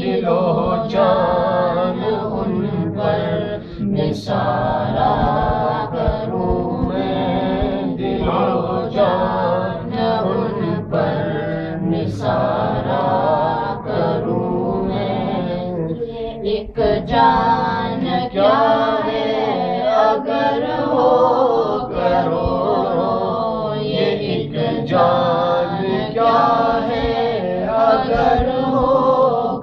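Two boys singing a devotional Urdu poem (kalam) together, a chant-like melody with long held notes and short breaths between lines.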